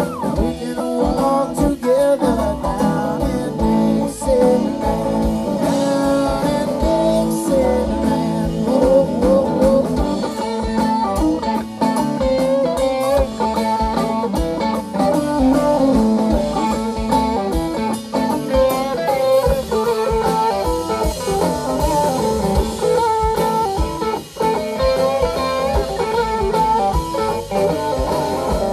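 Southern rock band playing live: electric guitars over drums and keyboards.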